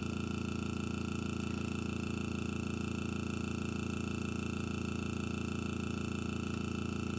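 Steady, unchanging motor hum made of many even tones, strongest in its low range. A couple of faint, brief high ticks sound near the end.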